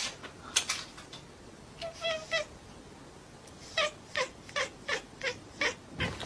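A cat mewing in short, high calls: three quick ones about two seconds in, then a run of about seven falling mews at roughly two a second. A few sharp clicks come in the first second.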